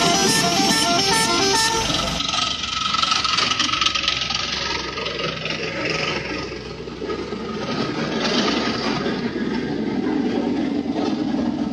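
A bus's multi-tone 'telolet' air horn plays a quick stepping melody for about the first two seconds. Loud road noise from the passing bus follows.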